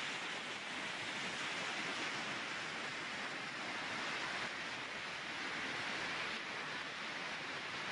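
Floodwater rushing and churning in a stream swollen by hurricane rains, a steady, unbroken rushing noise.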